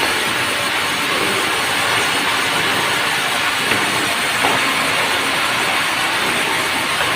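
Semi-automatic sawmill saw cutting through merbau timber, a loud, steady, even noise of the blade in the wood.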